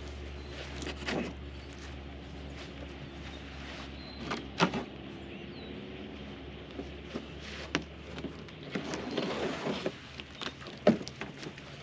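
Scattered knocks and clicks as a new Ridgid job-site table saw and its packaging are handled during unboxing, with a stretch of rustling about nine seconds in, over a steady low hum.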